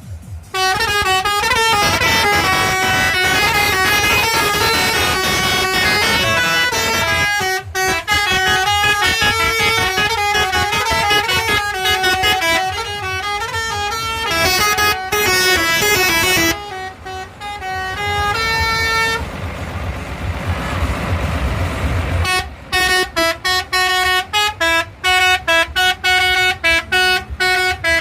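Telolet horn on a tour bus: a multi-tone musical air horn playing a tune of stepped notes. About two-thirds through, the tune gives way for a few seconds to a noisy rumble, then returns as quick, stuttering toots.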